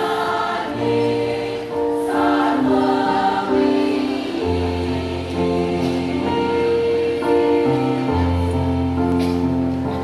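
A choir singing slow, sustained chords, the held notes shifting every second or so, with low notes held for several seconds underneath.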